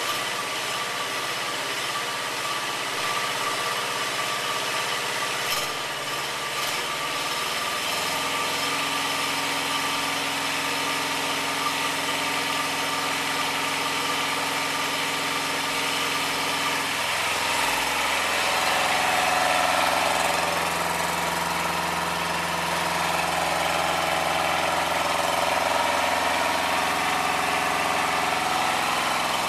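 Yanmar 2TNV70 two-cylinder diesel engine in a Bolens 1886 garden tractor, running steadily. Its speed changes about eight seconds in and again about seventeen seconds in.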